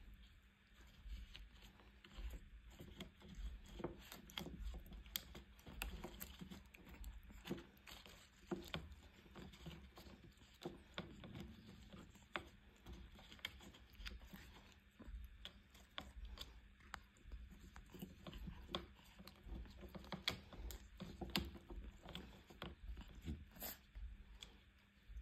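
A kitten biting and chewing on leafy flower stems: faint, irregular crunches and clicks, with the leaves rustling as it tugs at them.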